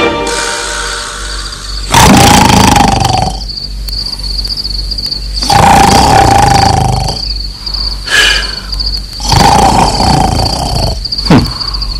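Loud cartoon snoring: three long, rasping snores about three and a half seconds apart, then two shorter ones near the end, over a steady chirping of crickets.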